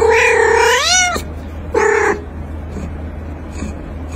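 A cat meowing: one long meow that rises in pitch at its end, then a shorter meow about two seconds in, over a steady low hum.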